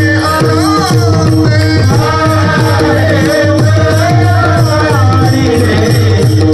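Varkari devotional singing: a solo voice singing a gliding melody over a steady drone, accompanied by a pakhawaj barrel drum playing a steady rhythm of deep strokes.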